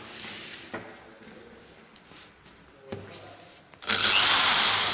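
A couple of knocks as a plywood board is shifted, then about four seconds in a corded electric hand drill starts suddenly and bores into the plywood sheet. Its motor whine rises and then falls in pitch.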